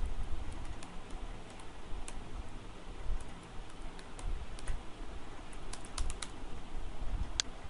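Keys clicking on a computer keyboard in short, uneven runs of taps, as a password is typed, over a low background rumble.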